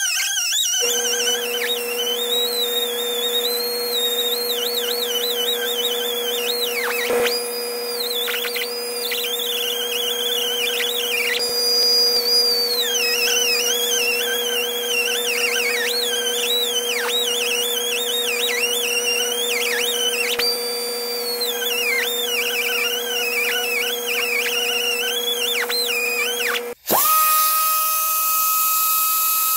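Small cutoff wheel grinding through the steel center sleeve of a control-arm bushing: a steady whine with a high screech that wavers up and down in pitch as the wheel bites. About 27 seconds in it cuts out for a moment, and then the tool spins freely with a steady higher whine and a hiss.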